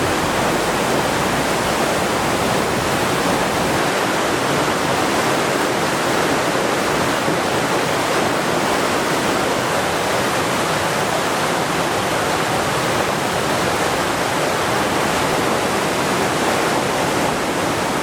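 Mountain creek in spate after heavy rain and snowmelt: a loud, steady rush of fast floodwater.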